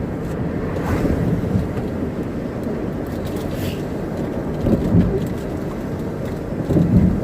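Steady low rumbling noise, with louder low bumps about five and seven seconds in.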